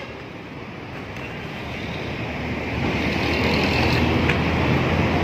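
Street traffic: a motor vehicle's engine hum and road noise growing steadily louder over the first few seconds, then holding steady.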